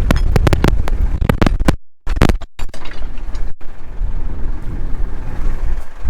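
Tractor engine idling steadily, with a quick series of clicks and knocks over the first three seconds.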